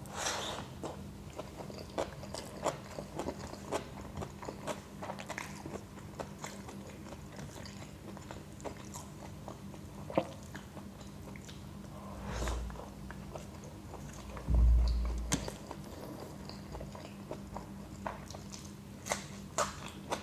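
A person eating tawa pulao and salad close to the microphone: steady chewing with frequent short, crisp crunching bites. Two dull low thumps come near the middle, the second about three-quarters of the way in the loudest sound.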